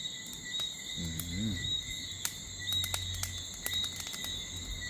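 Crickets chirping steadily, with scattered sharp pops and crackles from burning charcoal.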